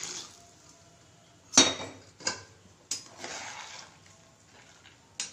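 Metal ladle clinking and scraping against a cooking pot while stirring boiling sambar: three sharp clinks, the first and loudest about a second and a half in, a short scrape of stirring, and one more click near the end. The splash of water being poured into the pot trails off at the very start.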